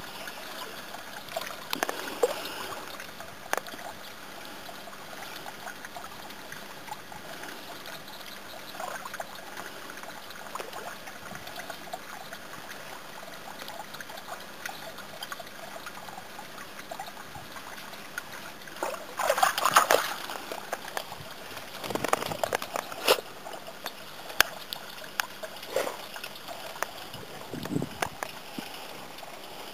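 Water trickling and sloshing as a dog wades in a shallow garden pond, with several louder splashes about two-thirds of the way through.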